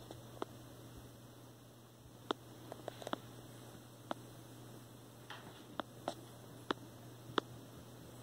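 Kittens' paws and claws tapping and clicking on a hardwood floor as they run about, about a dozen light taps at irregular times, over a steady low hum.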